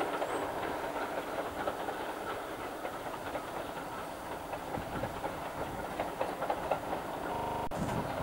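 Train running out of sight, its wheels clicking over the rail joints as a steady rolling rumble. A short buzz and a sharp click come near the end.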